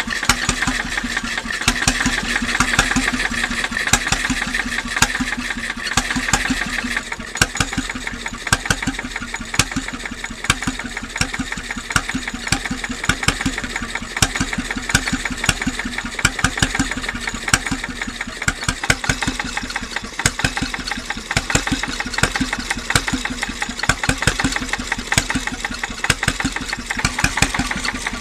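Lidan 5 hp single-cylinder hot-bulb (semi-diesel) marine engine running steadily, each firing stroke a sharp knock in an even, unhurried beat.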